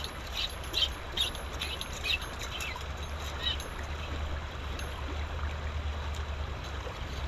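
River water rushing steadily. Short light clicks come through over it during the first few seconds, then stop.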